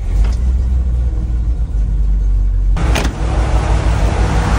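1988 GMC 7000's 366 big-block V8 catching on a cold start and settling into a steady low rumble. It is heard first from inside the cab, then more fully from outside, with a sharp knock about three seconds in.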